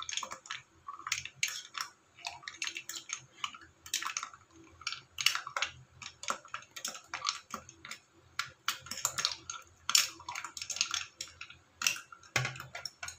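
Spoon stirring ice cubes and mashed fruit in a glass mug: quick, irregular clinks and taps against the glass, with a heavier knock near the end.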